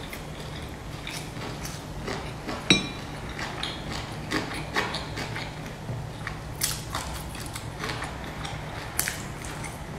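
Close-up mouth sounds of someone eating a soft dumpling: wet chewing with many small clicks and smacks. There is one sharp, ringing clink about three seconds in, over a steady low hum.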